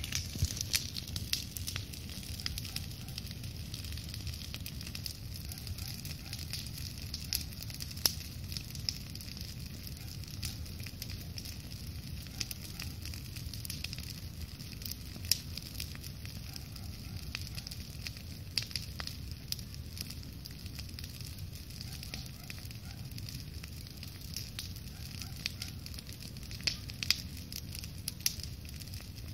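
Large campfire burning, with frequent irregular crackles and pops of the wood over a steady low rush.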